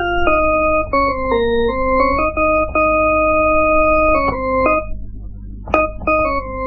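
Instrumental music: a melody of held notes stepping up and down in pitch, with a short break about five seconds in that ends with a click as the melody resumes.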